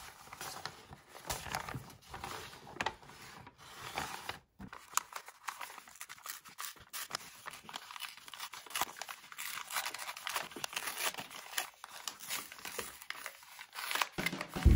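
Kraft paper bag being handled and its glued bottom peeled apart: irregular rustling, crinkling and small tearing crackles of stiff paper.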